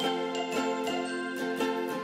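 Light instrumental background music with bright, chiming notes struck in a steady rhythm, about three notes a second.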